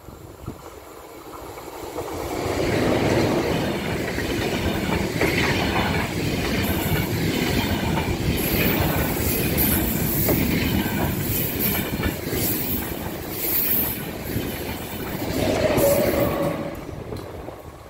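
ICE high-speed electric train passing close by at speed, its wheels clattering over the rails and crossing. The sound builds about two seconds in, holds loud, and dies away near the end.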